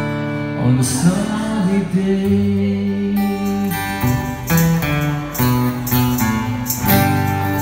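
Live acoustic guitar strumming with a singing voice holding long notes over it.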